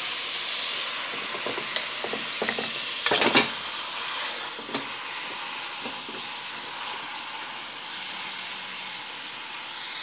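Pork leg searing in hot lard in an aluminium pot, the fat sizzling steadily. About three seconds in, a short louder clatter with a burst of sizzle as the meat is turned over with a fork.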